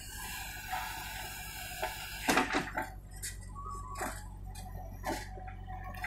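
JCB 3DX backhoe loader's diesel engine running steadily, with a few sharp metallic clanks from the backhoe arm and bucket as it swings back from the trolley and lowers into the trench.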